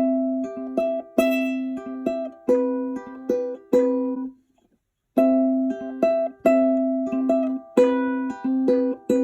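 Ukulele playing a short melodic phrase of plucked notes that ring on. After a brief break about four seconds in, the same phrase is played again.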